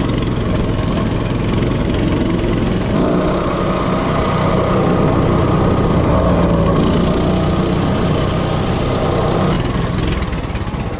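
Coleman CT200U-EX minibike's 196cc single-cylinder engine running hard as the bike rides along, steady and loud, then easing off near the end as the bike slows.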